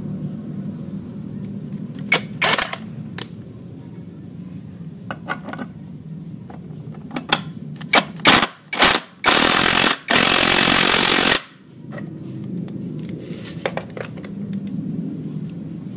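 Cordless impact wrench hammering on the centre nut of a scooter's CVT clutch assembly to undo it. A few short bursts come first, then about two seconds of continuous hammering just past the middle, and the nut comes free.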